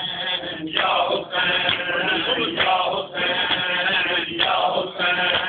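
A group of men chanting a Shia mourning lament (noha) in unison for matam, in repeated sung phrases with short breaks between them.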